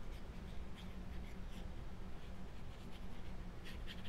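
Fine metal-tipped glue bottle scratching and ticking lightly against cardstock as glue is laid on, a scatter of faint scratches over a low steady hum.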